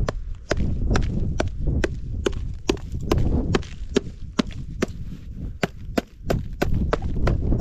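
Ice on a frozen pond struck over and over to break a hole through it, about two sharp knocks a second; the ice is about an inch thick. Low wind rumble on the microphone underneath.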